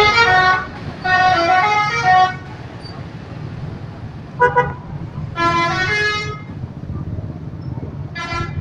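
Indonesian bus "telolet" horn, a multi-tone musical air horn, sounding a series of separate melodic blasts, each stepping through several notes. There are about five blasts; one near the middle is very short, and the last starts just before the end. Under them runs a low engine rumble.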